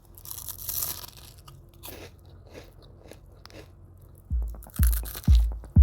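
A crisp bite into a crunchy snack, followed by faint chewing and a second crunch near the end. About four seconds in, electronic music starts with a steady kick-drum beat, about two beats a second.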